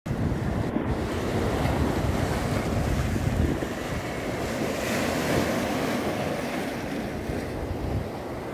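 Small sea waves washing and breaking over a rocky shoreline, with wind buffeting the microphone, heaviest in the first few seconds.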